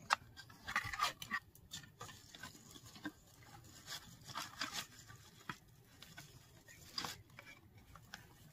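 Cardboard and tissue paper rustling and scraping as an inner box is slid out of its outer carton by hand, with scattered light clicks and crinkles.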